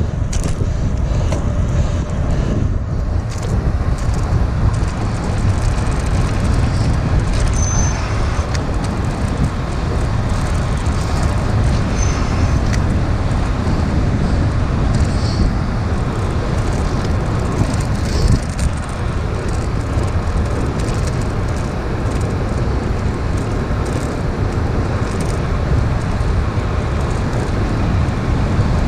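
Steady rush of wind and road noise picked up by the camera microphone on a moving bicycle.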